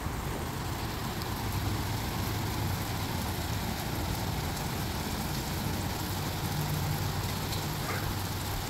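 Heavy rain pouring steadily, an even hiss of rain on pavement and standing water, with a low hum underneath.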